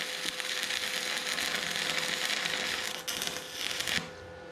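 Stick (arc) welding: the electrode's arc crackling and sizzling steadily. The crackle breaks off about four seconds in, leaving a quieter steady hiss.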